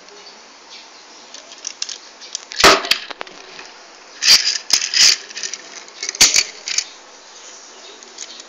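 Sharp clacks and knocks as a small die-cast toy ambulance is handled and set down on a table, about five in all, the loudest about a third of the way in.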